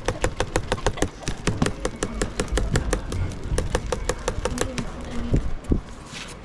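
Piece of cardboard fanned rapidly over a charcoal grill, flapping in a fast even rhythm of about six strokes a second that slackens near the end.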